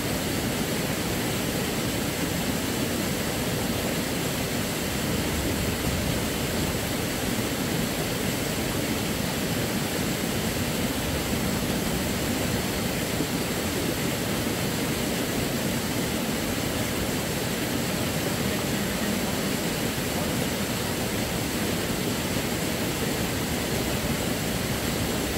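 Steady, even rushing of a shallow river pouring over rocks and small cascades.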